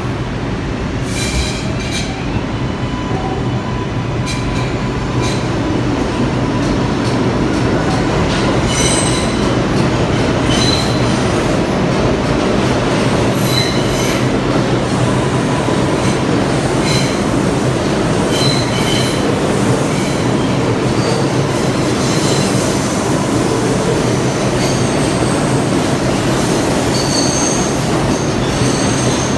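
New York City subway trains, an R142A and an R142, pulling out of the station. Their wheels and motors make a steady rumble that grows a little louder as they pick up speed, with short, high-pitched wheel squeals coming off and on throughout.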